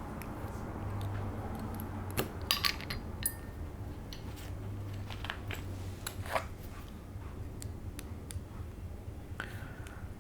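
Small clicks and taps of RC car shock absorber parts being handled and taken apart by hand, in a few scattered clusters over a steady low hum.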